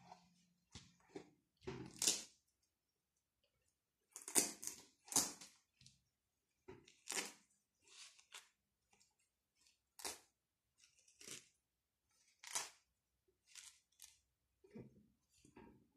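A felt quiet book being handled: the barn-door flap opened and felt pieces pulled off and pressed back on, giving a series of short, scratchy rustles and rips, some of them sharp.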